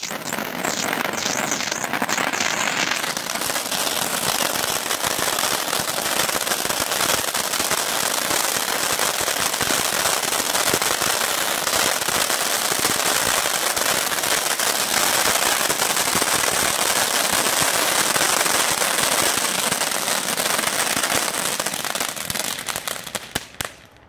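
Silver Dragon cone fountain firework spraying sparks: a steady, loud hiss thick with rapid crackling, which dies away in the last couple of seconds as the fountain burns out.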